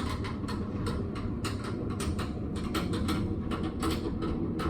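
Quick, irregular rustling and clicking, several a second, as the patient is handled and positioned in a ring-type neck traction device for a chiropractic adjustment, over a steady low hum.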